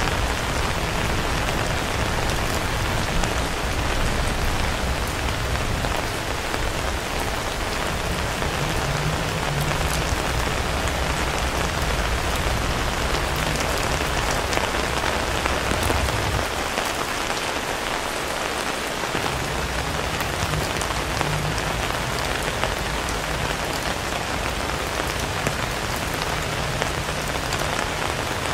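Steady rain falling on pavement and surfaces, a dense even hiss of drops. A low rumble runs beneath it and drops away for a couple of seconds about two-thirds of the way through.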